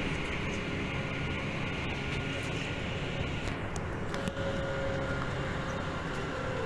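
Tokyu 8500 series electric train heard from inside the passenger car while running: a steady rumble and hiss of wheels and motors on the track, with a few sharp clicks about four seconds in.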